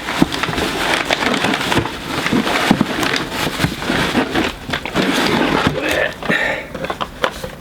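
Packing material and a cardboard Funko Pop box being handled and pulled from a mystery box: a dense run of crinkling and crackling, thinning out near the end.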